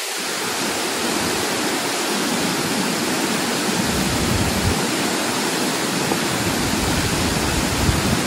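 Tall waterfall's steady rush of falling water, with low rumbles swelling in and out from about four seconds in.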